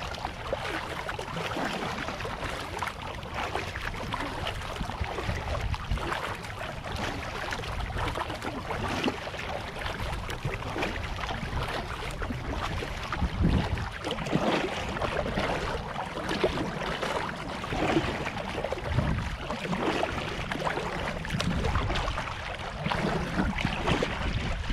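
Water splashing and sloshing around a kayak being paddled, with irregular splashes and swells.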